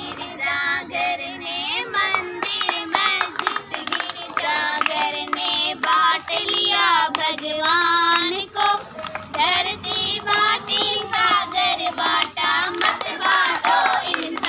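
Children singing, with hands clapping along.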